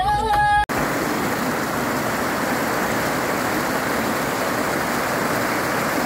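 Music cuts off abruptly under a second in, followed by the steady rush of flowing stream water.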